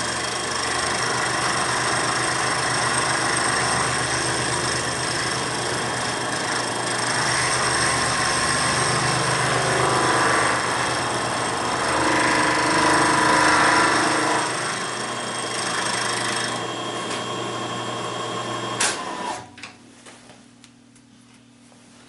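Vertical milling machine cutting into a metal block: a steady cutting noise with a fixed high whine, swelling for a few seconds midway. Near the end a sharp click, and the cutting stops, leaving a low motor hum and a few small clicks.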